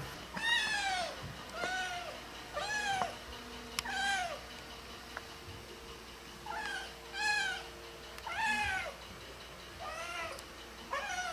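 Kitten meowing repeatedly: about nine high calls, each falling in pitch, in two bunches with a pause of about two seconds in the middle.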